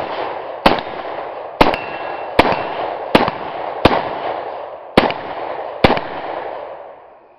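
Arsenal quad-rail Bulgarian AK-74-pattern rifle firing 5.45x39 Tula rounds semi-automatically: seven shots, each under a second or so after the last, with a long rolling echo between them that dies away near the end.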